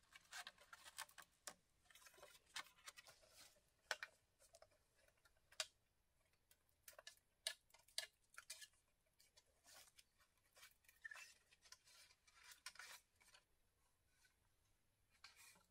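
Faint, irregular clicks, taps and scratches of green bamboo poles being handled and lashed together into a frame, thinning out near the end.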